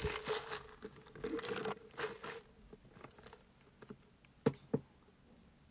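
Clear plastic drink cup with a straw handled close to the microphone and sipped from: a crinkling rustle for about two seconds, then two short clicks near the end.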